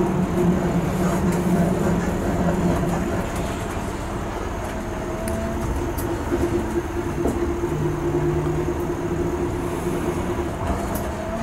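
Steady drone of a moving vehicle heard from inside: an engine hum under continuous rolling noise, with no sudden events.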